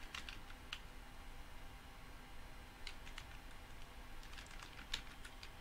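Computer keyboard being typed on: faint keystrokes in short runs, one cluster about three seconds in and another about four and a half to five seconds in.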